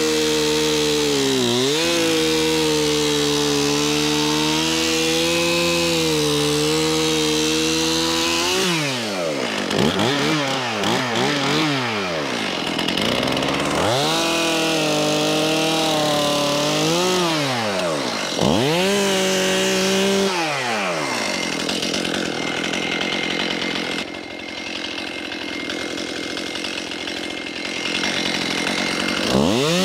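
Stihl Farm Boss two-stroke chainsaw cutting into mimosa stumps. It runs at steady high revs for the first several seconds, then its pitch swoops up and down again and again as the throttle is worked and the chain bites. It then runs slower and quieter for several seconds before revving up again near the end.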